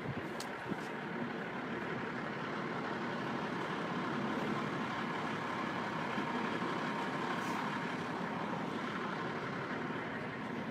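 Traffic noise from a semi truck on the street, a steady engine and road rumble that swells a little toward the middle.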